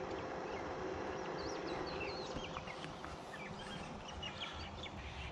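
Small birds chirping and twittering, many short quick calls scattered throughout, over a low, steady outdoor background.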